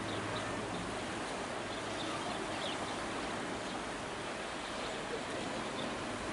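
Steady rushing noise of wind and choppy sea water, with a few faint high chirps.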